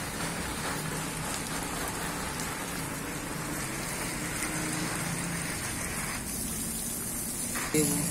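Water spraying from the open end of a hand-held garden hose onto the leaves of a shrub: a steady splashing hiss, with a brief louder burst near the end.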